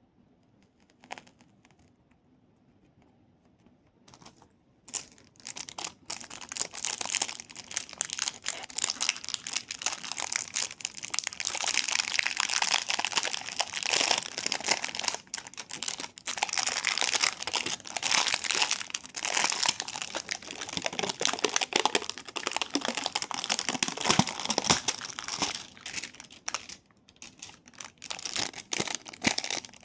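Crinkling and crackling of plastic handled by hand, starting about five seconds in after a single click and running on as a dense, continuous crackle.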